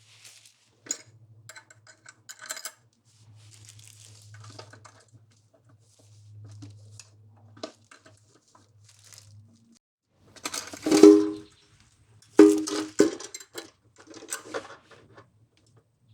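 Small metal parts clinking and clattering as mounting hardware (nuts, washers, bolts) is handled. There are scattered light clicks, then two louder ringing metal clanks about two-thirds of the way through.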